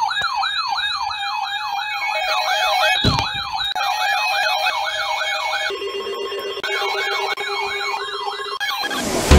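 Electronic emergency-vehicle sirens sweeping quickly up and down, about two to three sweeps a second, with a second siren tone layered over them. Just before six seconds in the sweeping gives way to a steadier pulsing tone, then it returns about a second later.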